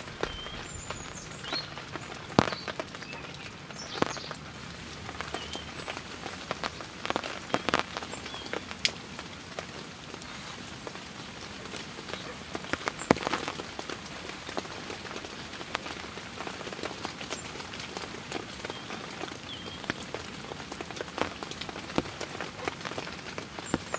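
Steady rain falling, with scattered sharp taps and clicks standing out above the patter, the loudest about two and a half, four, seven and thirteen seconds in.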